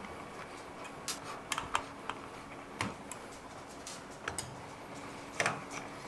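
Scattered light clicks and taps of a screwdriver and small screws as the screws holding a powerCON connector are backed out of a sheet-metal electrical box and dropped onto a metal workbench, with a somewhat louder knock of the box being handled about five and a half seconds in.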